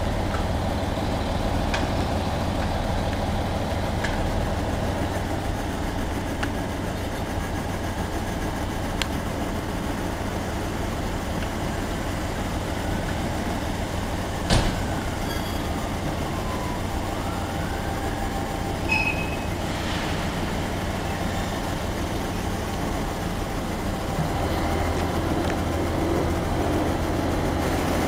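Model railway diesel locomotive running with a steady engine hum. There is a sharp click about halfway through, and the engine note grows deeper and stronger near the end as the red locomotive moves off.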